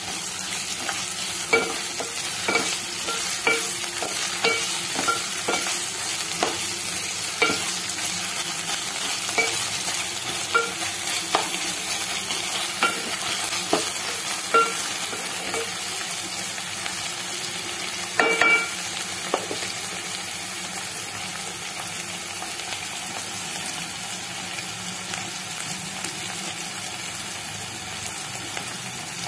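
Chopped onions, green chillies and ginger-garlic paste sizzling in oil in an aluminium pot while a wooden spatula stirs them, knocking against the pot about once a second so the metal rings briefly. After about twenty seconds the knocking stops and only the steady sizzle remains.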